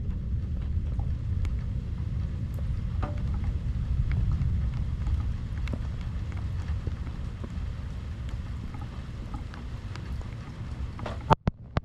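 Thunderstorm ambience: a steady low rumble with scattered raindrop ticks. Near the end come two sharp cracks, and then the rumble suddenly drops away.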